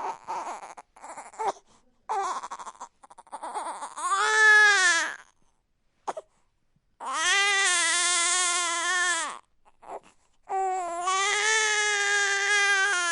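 Newborn baby crying: a few short, fussy sobs, then three long wails, each held a second or more, with short pauses between them.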